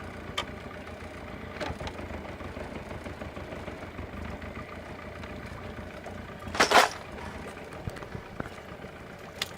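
Boat's outboard motor running steadily at low speed, with one short, louder noise about seven seconds in.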